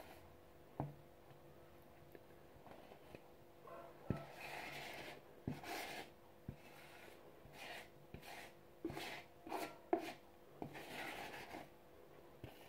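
Silicone spatula scraping cake batter off the sides of a plastic mixing bowl, in several short scraping strokes with a few faint knocks.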